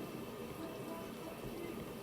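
Faint, steady hiss of a shower running elsewhere in the house.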